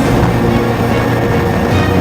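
Background music, loud and steady.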